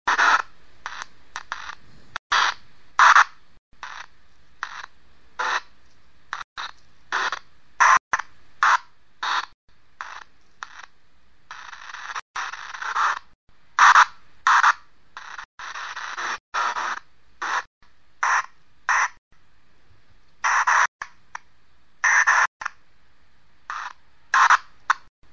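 Ghost box (spirit box) rapidly scanning FM radio frequencies for an EVP session: irregular short bursts of static and clipped radio sound, one or two a second, with brief silences between.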